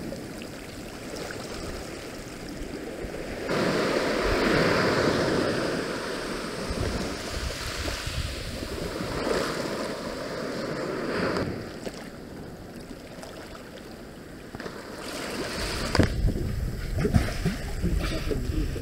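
Waves washing on the shore with wind buffeting the microphone, a steady rushing that swells a few seconds in. Near the end it turns rougher, with short bumps and knocks from the wind.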